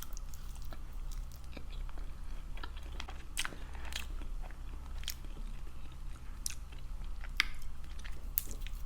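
Close-miked chewing and biting of chicken wings, with irregular small crunches and wet mouth clicks.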